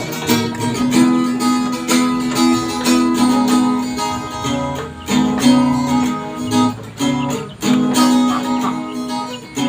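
Background music led by a plucked and strummed acoustic guitar, with a steady pulse.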